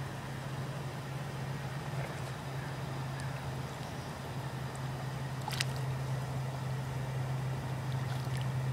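Steady low machine-like hum over a faint hiss, with one sharp click a little past halfway.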